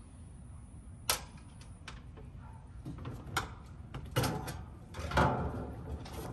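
Metal clicks, knocks and rattles of an outdoor AC condenser's wire fan guard, with the fan motor mounted under it, being lifted off and handled: a sharp click about a second in, then a cluster of knocks and rattles later on.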